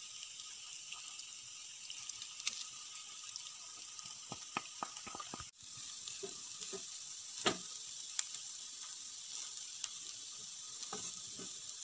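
Wooden spatula scraping and knocking in a nonstick pan as cooked rice is stirred together with chicken masala, with a few sharp taps, over a faint steady sizzling hiss from the hot pan.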